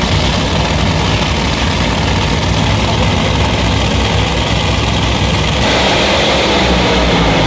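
Two drag-race cars' engines running loud and rough at the starting line, a heavy low rumble; about six seconds in the sound turns harsher and brighter as they rev up.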